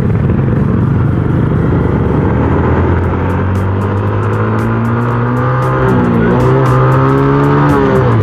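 Yamaha Sight's small single-cylinder four-stroke engine accelerating from a standstill, its pitch climbing as the bike picks up speed and dropping at gear changes about six seconds in and again near the end, over rushing wind and road noise.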